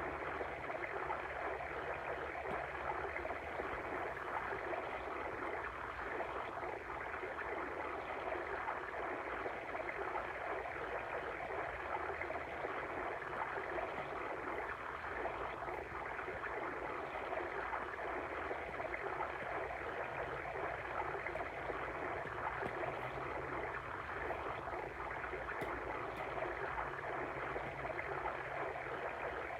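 Water stream ambience: a brook running steadily, an even rushing and burbling that holds unchanged throughout.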